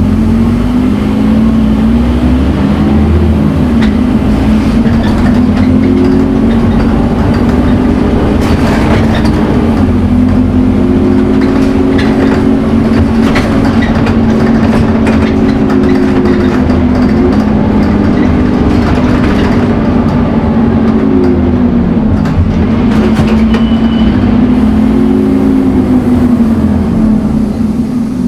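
Scania N230UD Omnicity double-decker bus's engine pulling hard, its pitch rising and falling again and again as it accelerates through the gears, with scattered clicks and knocks.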